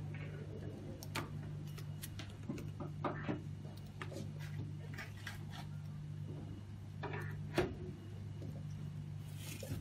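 Scattered small plastic clicks and taps as a reagent-bottle screw cap with pump tubing is handled and fitted, over a steady low hum.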